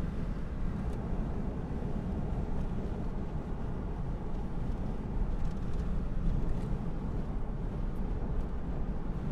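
Steady low rumble of road and wind noise inside the cabin of a moving car.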